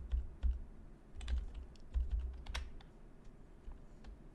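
Computer keyboard keys pressed one at a time while navigating BIOS menus: irregular sharp clicks, several with a dull low thump.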